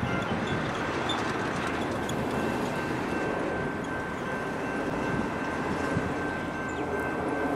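A train approaching in the distance: a steady rumble of running noise, with a few faint, thin steady tones above it.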